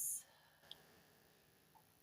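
A woman's spoken word trails off, then near silence with one faint click.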